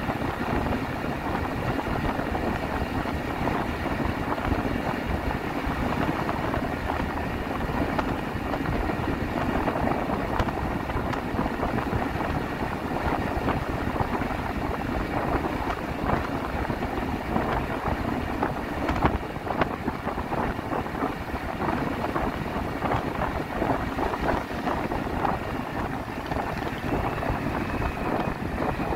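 Steady noise of a vehicle on the move, engine and tyres on the road, with wind buffeting the microphone and a constant scatter of small rattles.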